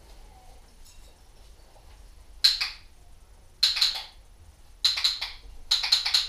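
A small object shaken by hand in four short, sharp rattling bursts about a second apart, starting two and a half seconds in; the last burst is longer.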